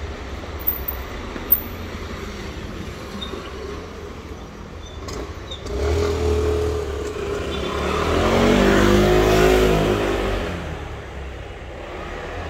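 A motor vehicle driving past on the street: its engine noise swells from about six seconds in, is loudest around nine seconds, then fades away, over a steady low traffic rumble. Two short sharp clicks come near the start.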